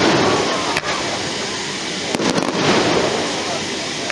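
Fireworks bursting: a loud bang at the start, a sharp crack just under a second in, and a cluster of cracks a little after two seconds, over a continuous rumble.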